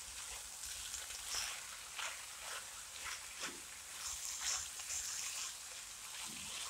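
Minced beef and diced onions sizzling faintly in a nonstick frying pan while a silicone spatula stirs them, with soft, irregular stirring strokes.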